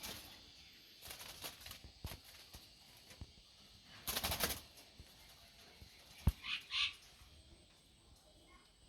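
Scattered rustles and scrapes from handling building materials by hand, with one sharp knock about six seconds in.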